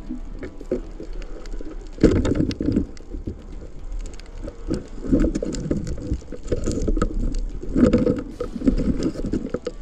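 Underwater noise at the camera while diving: water rushing and rumbling, with crackling surges about 2, 5 and 8 seconds in.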